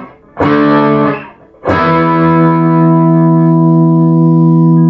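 Epiphone Les Paul electric guitar on its bridge pickup, played through an amp at the edge of breakup. A chord is strummed about half a second in and fades quickly, then a second chord is strummed and left ringing.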